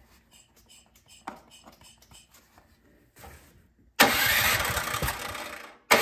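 Faint soft clicks of the primer bulb being pressed. About four seconds in, the Cub Cadet snowblower's single-cylinder engine starts and runs on its freshly cleaned carburetor, which had a clogged main jet. It cuts out for an instant near the end and catches again.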